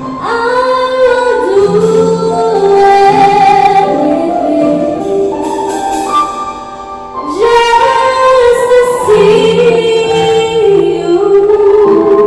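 A woman singing a slow gospel worship song into a microphone, accompanied by an electronic keyboard holding sustained chords. Two long sung phrases, the second beginning about seven and a half seconds in.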